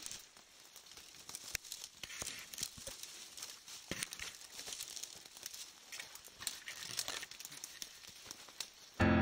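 Dry grass and reed stems rustling and crackling against a handheld camera as it moves through them, with many small irregular clicks. An electric piano comes in suddenly at the very end.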